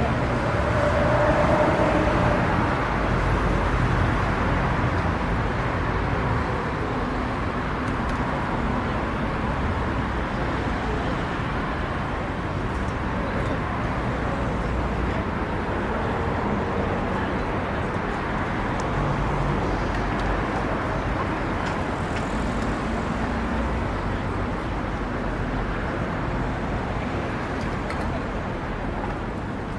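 Busy downtown street ambience: steady traffic noise with a murmur of passing people's voices, a little louder in the first few seconds.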